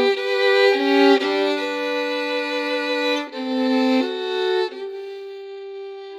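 Slow violin music: long bowed notes, two or three sounding together, changing about once a second and growing softer near the end.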